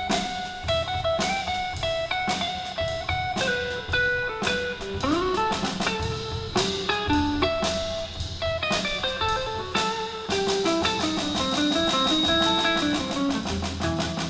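Live blues band playing an instrumental break: a guitar plays a single-note lead line with bent notes over a drum kit.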